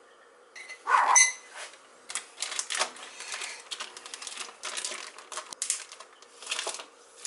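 Plastic zip-top bag crinkling and crackling in the hands as it is worked closed along its zipper seal: a dense, irregular run of small clicks and crackles, with a louder knock about a second in.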